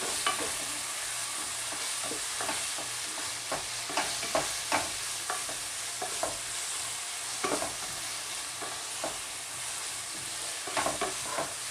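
Chicken pieces sizzling in a hot frying pan while being stirred, with a steady frying hiss and irregular scrapes and knocks of the utensil against the pan.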